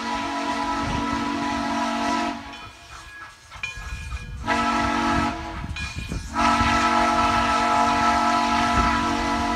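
Steam locomotive whistle of Frisco No. 1630, a 1918 Baldwin 2-10-0 Decapod, blown as a chord of several notes in separate blasts: one ending about two seconds in, a shorter one near the middle, then a long one of about four seconds, with a low rumble underneath.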